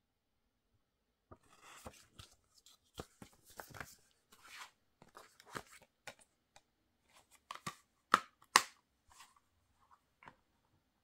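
Hands handling a plastic Blu-ray case and its paper booklet: a run of paper rustles and light plastic clicks, then two sharp snaps about half a second apart as the case is shut.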